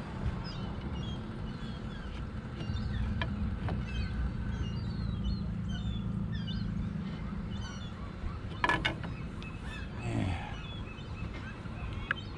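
Birds calling over a low steady rumble, with a brief clatter of knocks about nine seconds in.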